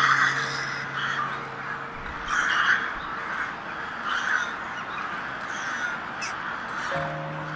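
A flock of crows cawing, harsh calls coming every second or so and overlapping, the loudest at the start and about two and a half seconds in.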